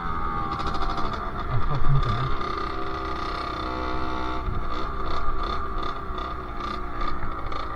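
Sherco SM-R 50's 50cc two-stroke engine running under way, its pitch rising and falling as the throttle changes.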